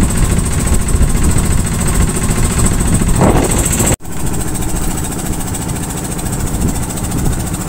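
A fishing boat's engine running steadily and loudly. It drops out for an instant about four seconds in and carries on slightly quieter.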